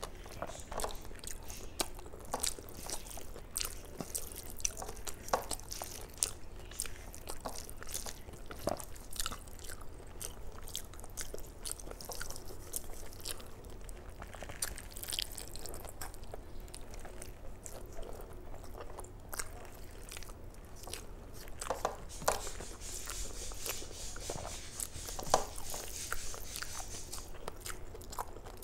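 A person chewing and eating mouthfuls of rice and curry close to the microphone, with many short wet mouth clicks and bites.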